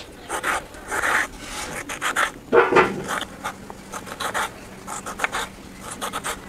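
Kitchen knife dicing a tomato on a wooden cutting board: irregular strokes of the blade through the flesh, knocking and scraping on the wood.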